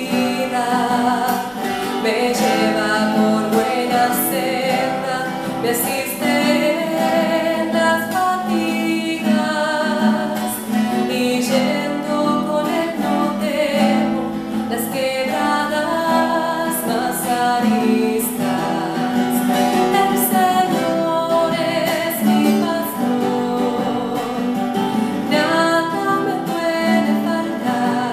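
A woman singing a Spanish psalm song, accompanying herself with strummed chords on a cutaway acoustic guitar.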